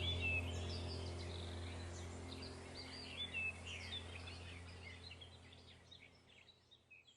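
Small birds chirping in short, quick calls over a steady low drone, the whole sound fading out gradually toward silence.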